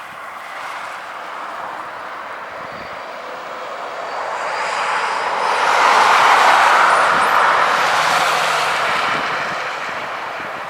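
Jet airliner passing close by: its engine noise swells to a peak about six seconds in, with a faint high whine, then fades away.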